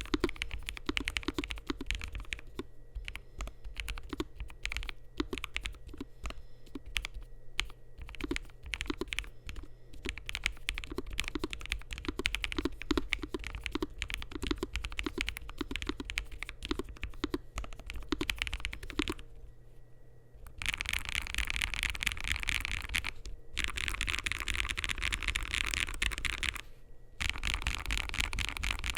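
Typing on a Lofree Flow low-profile mechanical keyboard with Kailh Ghost linear switches and PBT keycaps: a steady run of key clacks, then after a short lull about 20 seconds in, three stretches of very fast, dense key clatter broken by two brief pauses.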